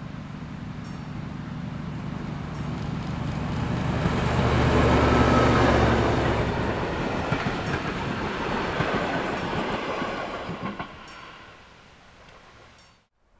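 Diesel locomotive passing with a train of passenger coaches: its engine drone builds and peaks about five seconds in, then the coaches' wheels clatter past and fade away.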